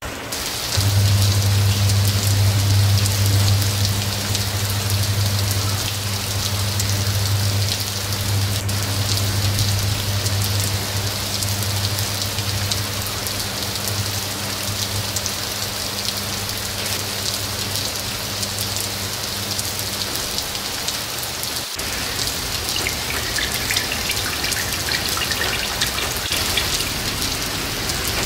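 Heavy rain pouring down, a steady even hiss of drops on glass and hard surfaces. A steady low hum sits underneath from about a second in and stops about three-quarters of the way through.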